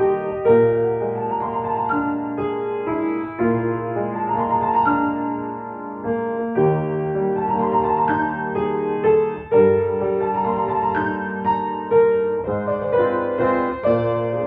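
Solo piano playing a gentle, flowing melody over sustained chords.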